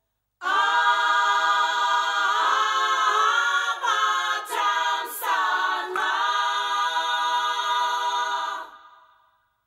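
Background music: an a cappella choir singing long held chords. It starts about half a second in and fades out near the end.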